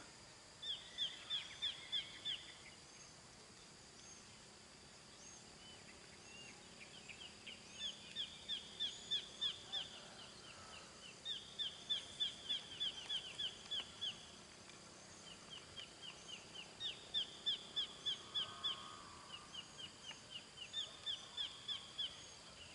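A bird singing: repeated phrases of quick, falling whistled notes, about five a second, each phrase lasting one to three seconds with short pauses between.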